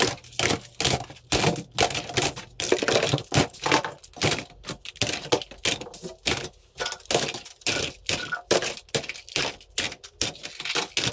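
Plastic toy guns clattering and knocking against each other as they are handled and dropped into a cardboard box: a rapid, irregular run of clicks and knocks.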